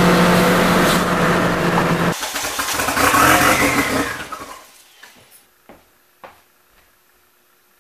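Turbocharged Nissan Sentra four-cylinder engine revving high, heard from inside the cabin. About two seconds in the deep engine note drops away and a rushing sound swells and fades over the next two seconds, followed by a few faint knocks.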